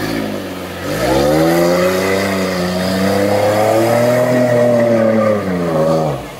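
An off-road 4x4's engine revving hard. The revs climb about a second in, hold high for about four seconds, then drop back near the end.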